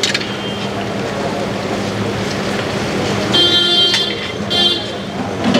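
Street traffic noise with vehicle horns honking twice in the second half, one longer blast of under a second and then a short one.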